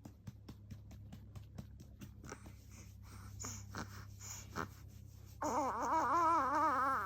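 A newborn baby fusses with soft grunts and breathy sounds, then lets out a loud wavering whine for the last second and a half. Under it run light, even taps, about four or five a second.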